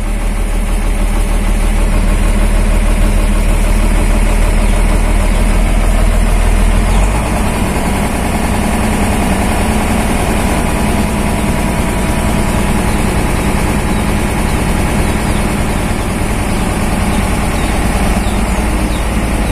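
Mercedes-Benz truck's diesel engine running at a raised idle while it warms up, heard from inside the cab. Its steady drone shifts and gets a little quieter about seven seconds in.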